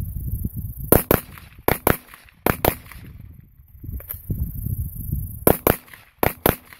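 Rifle fire from a Battle Rifle Company BR308, a 12.5-inch AR-10-style rifle in 7.62x51 NATO with a four-chamber muzzle brake. The shots come in quick pairs: three pairs in the first three seconds, a pause, then about five more shots near the end.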